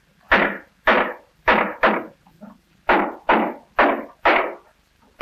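Cooper's hammer striking a hoop driver, knocking iron hoops down onto an oak barrel of staves: about eight sharp blows roughly half a second apart, each with a short ring, with a brief break after the fourth.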